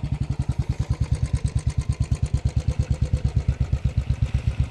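A vehicle engine running steadily, with an even low pulsing beat of about ten pulses a second and no revving.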